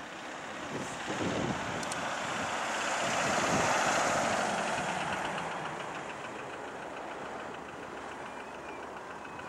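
Engine noise: a steady roar that swells to its loudest about four seconds in, then eases.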